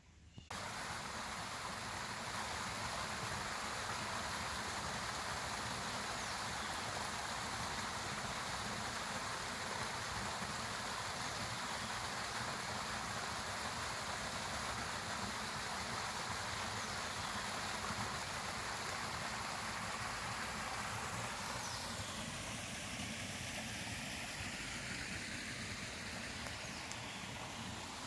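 Water of a small forest stream running and splashing over rocks, a steady rush that starts abruptly about half a second in.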